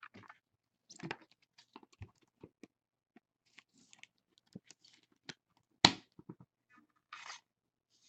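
Trading cards and a card pack wrapper being handled: scattered light clicks, scratches and short rustles, with one sharper tap about six seconds in and a brief rustle a little after seven seconds.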